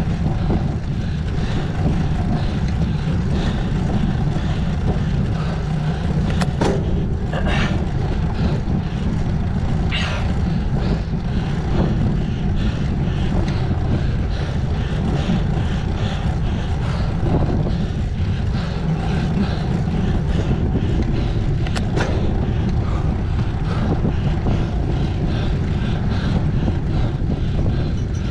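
Steady low rumble of wind and road noise on a racing bicycle's camera microphone while climbing, with a few brief sharp clicks.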